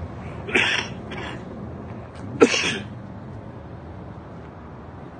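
A person coughing three short times close to the phone's microphone, the last cough the loudest, over a steady rushing background noise.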